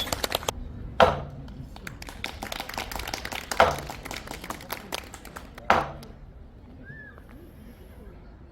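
Three single strikes on a large Korean barrel drum (buk), about two and a half seconds apart, each with a short low boom, with light clicking taps in between.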